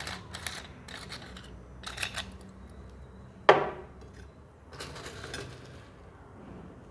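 Stainless steel salt-and-pepper grinder being handled and opened: short metallic clicks and scrapes, one sharp clink about three and a half seconds in, then a rough scraping stretch.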